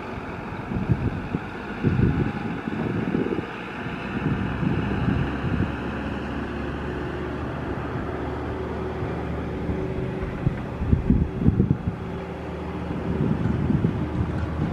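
Aero L-39 Albatros jet trainer's turbofan engine in flight: a steady rushing roar with a high whine that slowly falls in pitch. Wind buffets the microphone in gusts, hardest about two and eleven seconds in.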